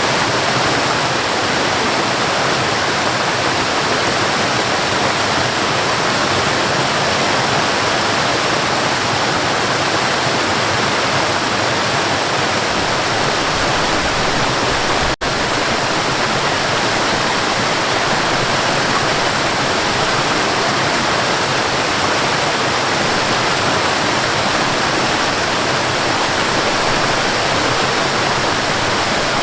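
Waterfall rushing steadily, a dense, even roar of falling water, with a momentary dip in level about halfway through.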